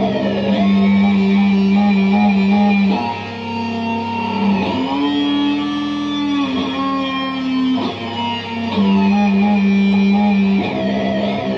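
Electric guitar played through an EarthQuaker Devices Data Corrupter harmonizing synth pedal and a fuzz: a few long held notes, changing every two to three seconds, with higher voices that swoop in pitch as each new note begins.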